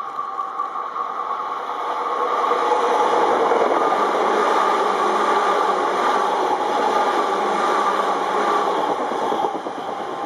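Izukyu 2100-series electric train running through the station: steady rolling noise of wheels on rail with a faint steady hum, building over the first couple of seconds, holding loud, then easing off near the end as it passes.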